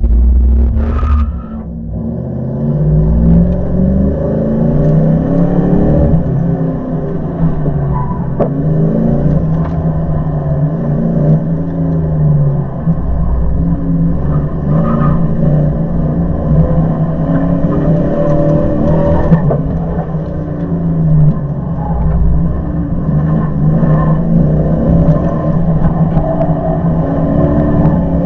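1999 Dodge Dakota R/T's 5.9-litre V8 revving up and falling back again and again as the truck is driven hard through an autocross run.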